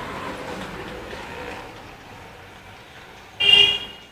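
A vehicle passing, its rumble slowly fading, then a short, loud horn honk about three and a half seconds in.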